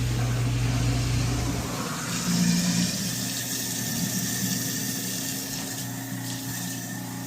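Garbage disposal motor humming steadily, then switched off a little under two seconds in. Water then runs into the sink for the rest of the time, as when a repaired disposal is tested for leaks.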